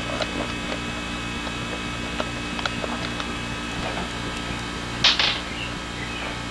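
Small knocks and clicks of a toddler handling things in a cardboard box, with a louder double scrape or rustle about five seconds in, over a steady, pulsing low hum.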